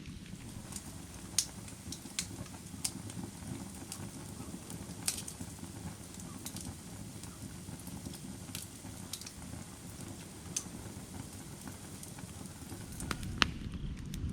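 Firewood burning: a steady low rush from the flames, broken by sharp, irregular crackles and pops of the burning wood, one loud pop near the end.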